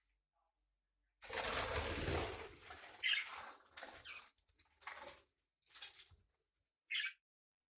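Small pet parrot flapping its wings in a loud burst about a second in, followed by scattered shorter flutters and a couple of short chirps.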